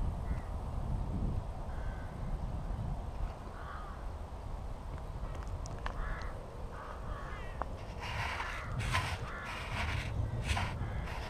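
Crows cawing: a run of short, harsh calls that starts about halfway in and comes thickest near the end, over a low steady rumble.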